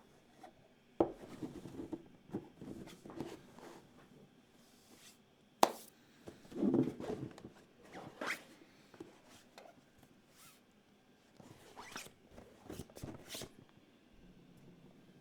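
Parts and packaging of a Gok 7V keyboard kit being handled: irregular rustling and scraping broken by sharp clicks and knocks, the loudest about a second in and again just before six seconds.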